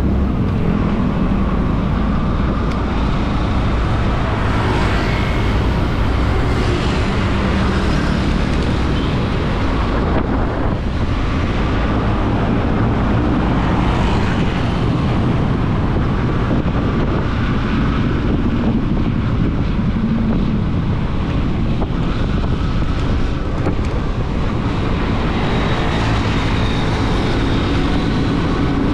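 Motorcycle riding at a steady cruising speed: engine and road noise with wind rushing over the microphone, with no change in loudness.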